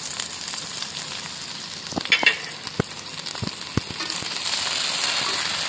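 Dates, sliced onions and green chillies sizzling as they fry in oil in a stainless steel pot, a steady hiss. A few light clicks of stirring sound about two to four seconds in.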